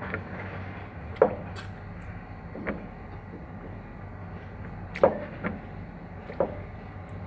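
Irregular metal clanks, about five sharp knocks, as a steel gear is handled and fitted into an excavator's swing-drive gearbox, over a steady low hum.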